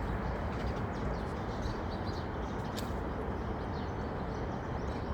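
Scattered short, high bird chirps over a steady outdoor rumble, with one sharper chirp near the middle.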